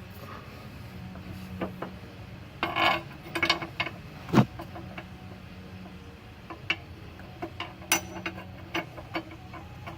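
Scattered metallic clicks and clanks of hand tools and bolts being handled while fitting a car's rear lower tie bar, with one sharp clank about four seconds in, over a steady low hum.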